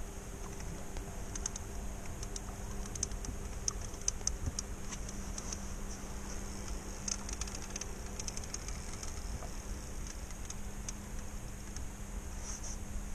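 Spinning reel ticking in quick, irregular runs of clicks while a large catfish is being played on a heavily bent rod, over a steady low hum.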